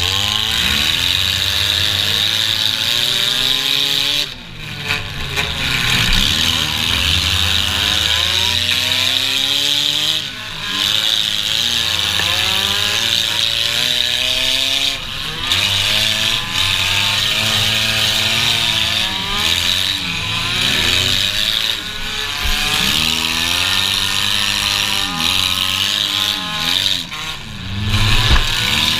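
Figure 8 race car engine heard from inside its stripped cabin, revving up and down over and over as the car accelerates and lifts, with a steady hiss over it. The throttle drops off briefly about four seconds in and again about ten seconds in.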